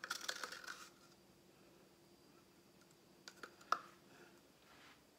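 Faint clicks and light scraping of a metal spoon against a small plastic paint cup as acrylic paint is scraped out: a quick run of clicks in the first second, then two louder clicks about three and a half seconds in.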